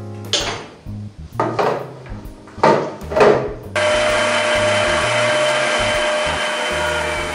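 Electric stand mixer switched on about 3.7 s in, its motor running steadily with a whine as the beater creams margarine and sugar in a steel bowl. Before that, a few sharp knocks of the steel bowl being handled and set onto the mixer.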